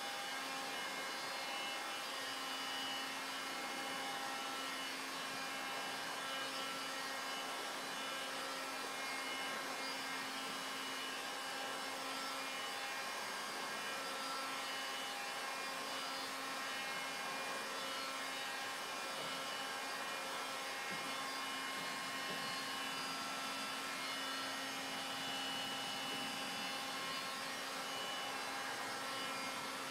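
Handheld electric heat gun running steadily, a constant blowing noise with a low hum from its fan motor, as it heats window tint film on a car's side window.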